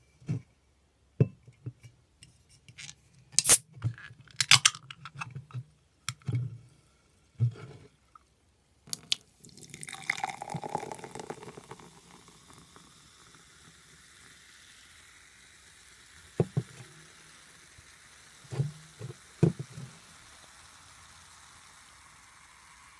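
A can of cherry vanilla cola being handled and opened: a run of clicks and taps, with the sharpest snaps a few seconds in as the pull tab is worked. About ten seconds in, the cola is poured into a glass with a short rush of liquid, then a faint steady fizzing hiss from the foaming soda, broken by a few knocks as the can is set down.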